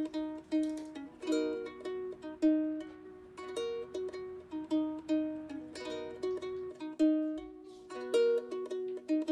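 Background music: a plucked-string instrument playing a light melody of short, quickly fading notes.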